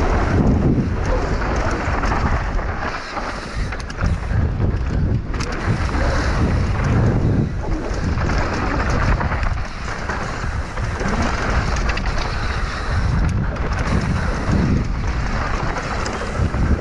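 Wind rushing over the microphone and knobby tyres rolling over a dirt trail as a downhill mountain bike descends at speed, with occasional short knocks from the bike over bumps.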